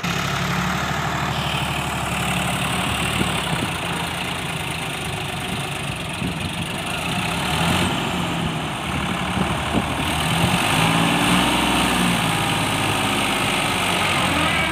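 Sonalika DI 750 tractor's diesel engine running while it moves a loaded trolley. The engine note rises and falls and gets louder from about ten seconds in.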